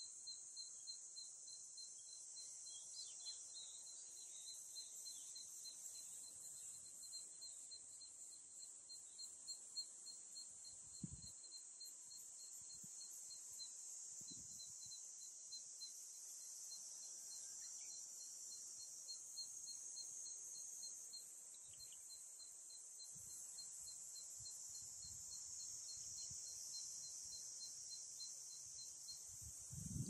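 Faint summer cicadas droning steadily at a high pitch. Under them a second insect call pulses quickly and evenly, stopping near the end.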